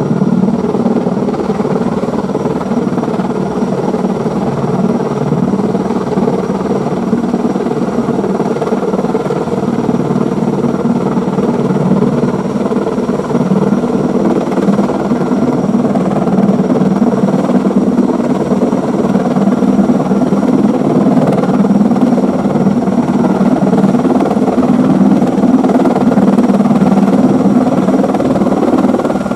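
Erickson S-64 Air Crane heavy-lift helicopter running steadily: a dense low drone from its turbines and rotors with a thin, steady high whine over it, growing slightly louder near the end.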